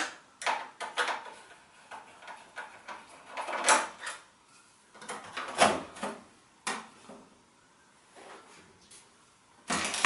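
Small screwdriver backing out the one screw that holds the hard-drive bracket in an all-in-one PC's metal chassis, with scattered clicks, scrapes and light knocks of metal and plastic parts being handled, and a louder scrape near the end.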